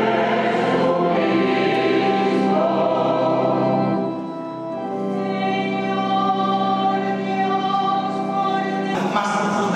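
A choir singing in long held chords. The singing breaks off abruptly near the end.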